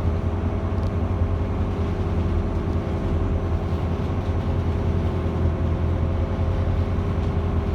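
Steady low drone of a cruise boat's engine, heard on board, with a faint steady whine above the hum.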